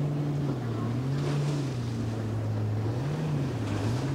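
Outboard engine of a Scout sportfish center console boat running at speed, a steady drone whose pitch rises and falls a few times. Hissing surges of spray and wind noise on the microphone come over it now and then.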